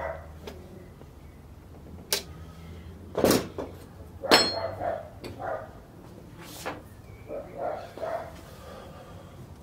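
Screws and a small steel bracket being removed from a copier fuser unit and set down on the bench: several sharp clicks and knocks, the loudest about four seconds in with a brief metallic ring.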